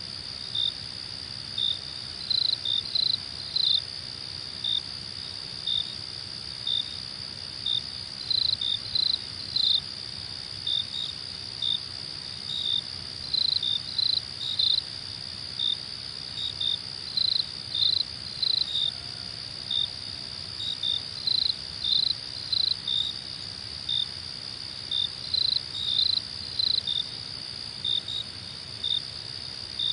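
Crickets chirping: a steady high-pitched trill underneath, with short, louder chirps coming at an uneven pace of about one to three a second.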